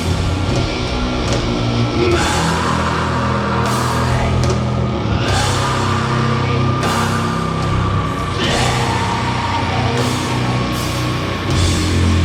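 Doom metal band playing live: heavily distorted guitars and bass holding long low notes over drums, with cymbal crashes every second or two. A sustained higher note rings over the top from about two seconds in.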